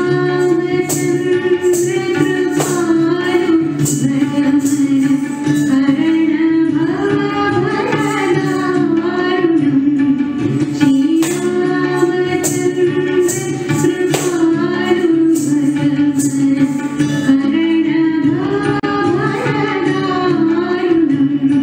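Devotional prayer song: a sung melody over a steady drone, with regular percussion strokes.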